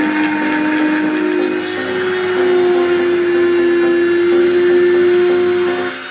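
Small 775 DC motor of a homemade mini table saw running at speed with a steady whine; the pitch steps up slightly about a second in and the sound drops off near the end. Background music plays underneath.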